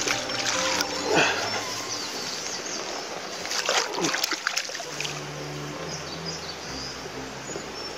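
A rainbow trout thrashing at the water's surface as it is scooped into a landing net, splashing in bursts about a second in and again around four seconds in.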